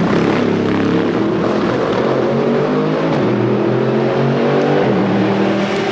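Race car engine under hard acceleration, its pitch climbing steadily for about five seconds, then dropping sharply at an upshift near the end.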